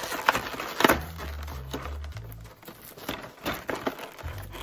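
Hands prying open a Hot Wheels five-car blister pack: the plastic blister and cardboard backing crackle and snap, with a few sharp clicks, the loudest a little under a second in, and dull knocks of the package being handled.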